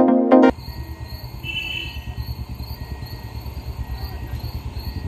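Electronic intro music cuts off about half a second in. Then comes the low rumble of an approaching suburban electric multiple-unit train, with crickets chirping in an even pulse over it.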